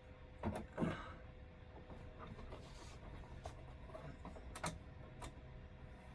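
A few knocks and clicks from the air-conditioner's ceiling cover being handled and fitted back in place: two close together about half a second in, then two more near the end, over a faint steady hum.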